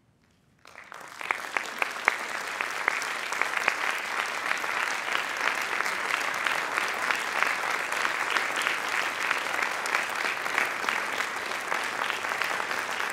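Audience applauding, breaking out under a second in after a brief silence and continuing as dense, steady clapping.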